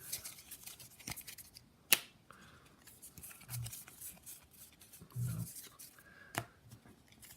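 Trading card packs being handled and turned over: faint crinkle of foil wrappers and card stock, with a few sharp clicks, the loudest about two seconds in and another near the end.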